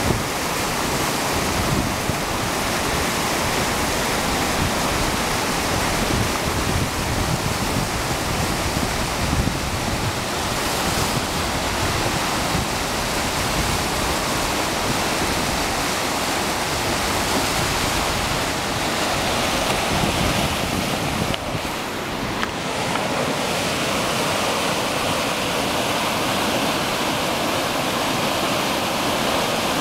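Steady rush of whitewater pouring through a pump-fed artificial slalom channel, a dense continuous noise of rapids over concrete and boulders; it turns briefly duller about two-thirds of the way through.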